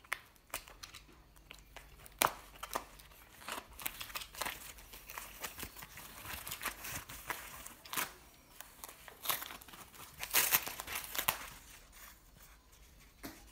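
A paper airmail envelope being slit open with a box cutter, then the thin white foam packing wrap inside pulled out and unfolded. Irregular crinkling, rustling and tearing with several sharp, louder crackles, busiest in the middle stretch.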